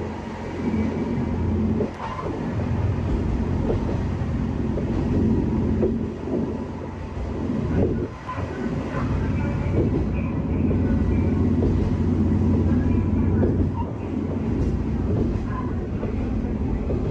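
Kanto Railway KiHa 2000-series diesel railcar under way, heard from the cab: a steady diesel engine drone with wheel and rail noise. The level dips briefly about two seconds in and again about eight seconds in.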